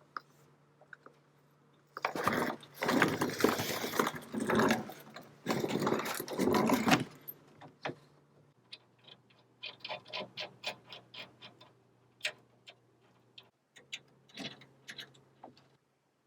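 Hands-on workshop noise of tools and metal parts being handled. A few seconds of loud rustling and clattering come first, then a run of light, irregular clicks and ticks, over a faint steady hum.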